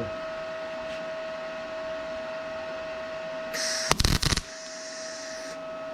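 A steady electrical hum with a thin whine, then about three and a half seconds in a short burst of wire-feed welding: a hissing crackle with several loud cracks as the arc strikes, lasting about two seconds.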